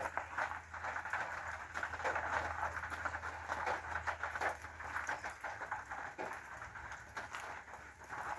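Rain pattering as many fine irregular drops, over a low steady hum that fades out about halfway through.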